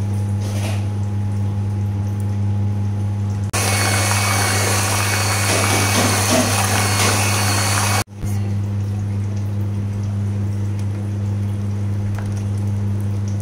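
Electric hand mixer whisking whipped cream and mango custard in a glass bowl. It starts about three and a half seconds in and cuts off suddenly about eight seconds in. A low steady hum runs underneath throughout.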